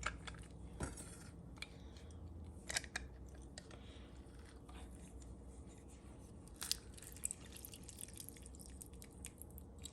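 Hand citrus squeezer pressing cut limones: faint scattered clicks and squishes, with a few sharper clicks about one, three and seven seconds in.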